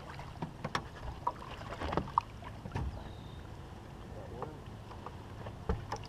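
Scattered knocks and clicks of fishing gear and hands bumping around a small fishing boat, over a low steady hum.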